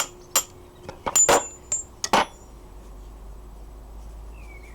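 Sharp metal-on-metal knocks, about six in the first two seconds, one leaving a brief high ring, as the pivot pin is knocked out of a wrought iron locksmith vise.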